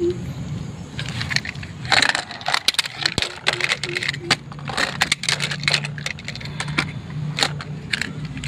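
Toy vehicles clattering and knocking together as they are handled, giving an irregular run of sharp clicks and knocks.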